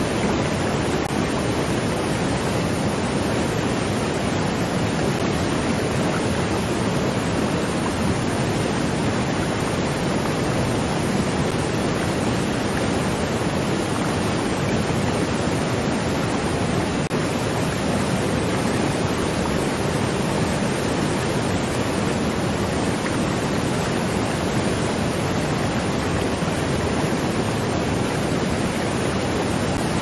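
Waterfall: water pouring and splashing in a low, steady, unbroken rush.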